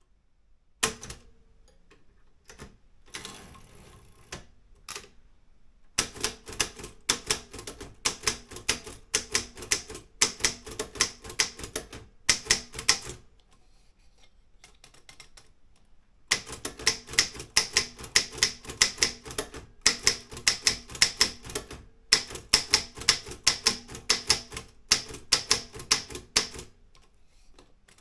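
Olympia M8 manual typewriter being typed on: a few scattered clicks and a short rustle at first, then two long runs of fast, sharp key strikes several a second, broken by a pause of about three seconds in the middle.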